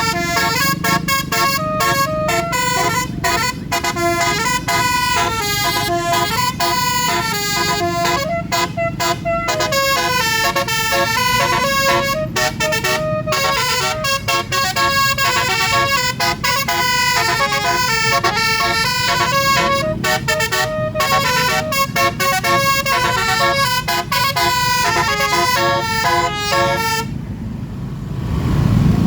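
Basuri telolet musical horn playing a quick tune of short stepping notes over a vehicle engine's low running rumble; the tune stops near the end, leaving the engine.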